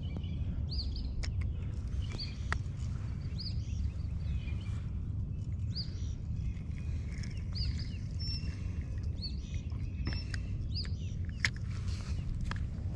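Outdoor ambience by a pond: a steady low rumble of wind on the microphone, with birds chirping in short high notes every second or so and a few sharp clicks.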